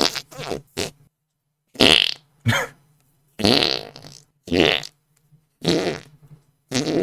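Fart noises made by a person blowing air, a quick run of about eight short raspy blasts with pitch that bends up and down, separated by brief pauses.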